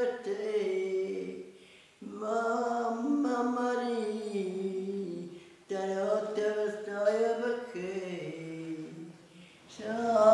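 An elderly woman singing unaccompanied, in three wavering phrases with short pauses between.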